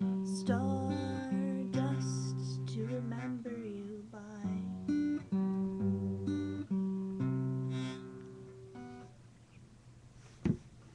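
Acoustic guitar strummed in chords, the last chord ringing out and fading away about nine seconds in. A single sharp knock sounds near the end.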